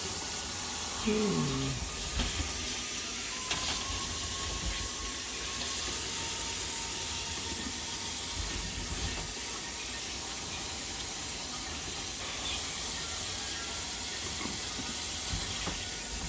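Kitchen tap running steadily: an even hiss of water into the sink.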